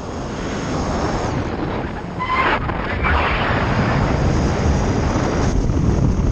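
Wind rushing over a camera microphone under an open parachute canopy: steady loud noise heaviest in the low end. A short high tone sounds briefly about two and a half seconds in.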